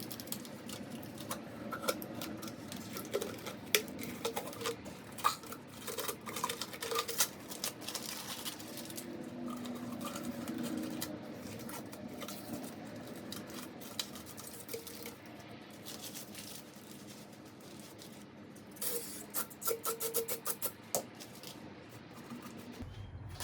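Light rustling, scratching and clicking of parts and wiring being handled by hand, in scattered bursts with a busier run of clicks near the end.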